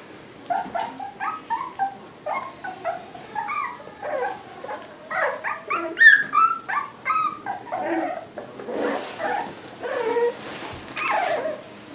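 A litter of American water spaniel puppies, under three weeks old, whining and yipping, many short squeaky cries overlapping one another, loudest about six seconds in.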